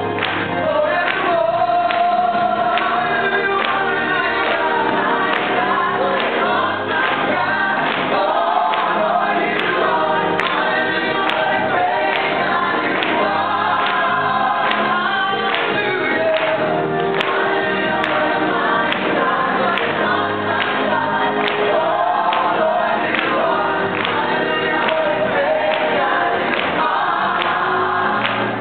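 Live gospel praise team, a mixed group of men and women, singing a worship song together into handheld microphones over band accompaniment with a steady beat.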